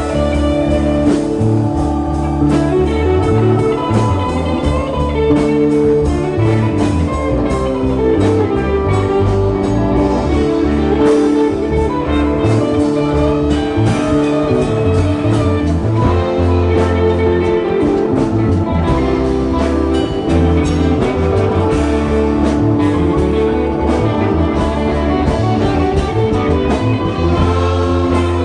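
Live rock band playing an instrumental passage: electric guitars, electric bass, keyboards and drum kit.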